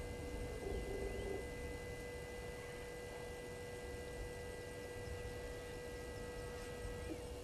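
Steady electrical hum, with a fainter high whine that cuts off near the end, over a low rumble.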